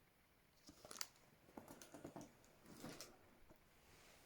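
Near silence broken by a few faint clicks and rustles of small items being handled, in three brief clusters about a second apart.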